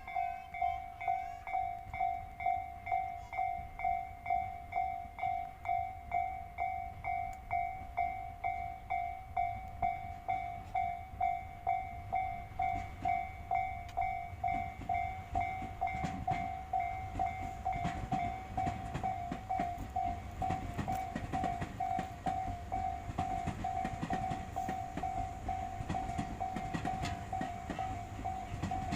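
Japanese railway level-crossing warning bell ringing steadily, about two strokes a second. From about halfway through, a train passes over the crossing, its wheels clattering over the rail joints under the bell.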